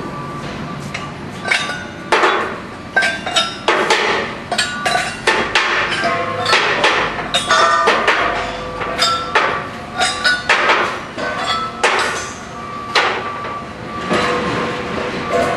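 Steel gas cylinders and fill-manifold fittings clanking and clinking as they are handled: many sharp, irregular metal knocks, some ringing briefly, over a faint steady tone.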